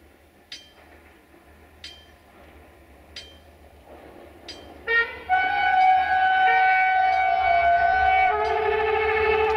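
Level-crossing bell striking about once every 1.3 seconds, then about halfway in a train horn sounds a long chord blast that drops to a lower chord about three and a half seconds later and holds.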